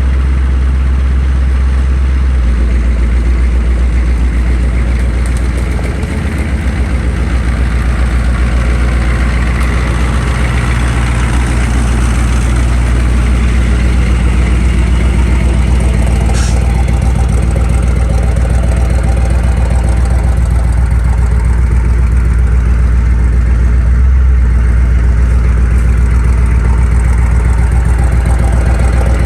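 LBZ Duramax 6.6-litre V8 turbodiesel pickup engine running steadily at idle, with a slight dip about six seconds in.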